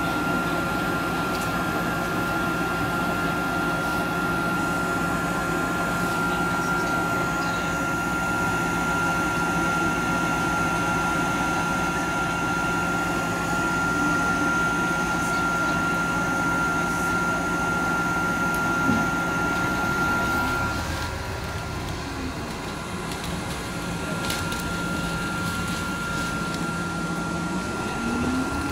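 Steady electrical hum and ventilation noise of a waiting tram, with a thin high whine that stops about three quarters of the way through. Near the end a low tone starts rising as the tram begins to pull away.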